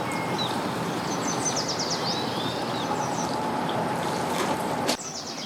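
Steady outdoor background noise with small birds chirping, a quick run of high chirps about a second and a half in. A sharp click just before the end, after which the background drops slightly.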